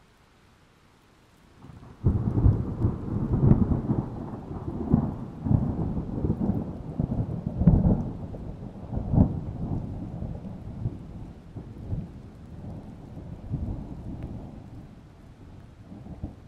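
Thunder rolling: a sudden deep rumble starts about two seconds in, swells in irregular peaks and slowly dies away.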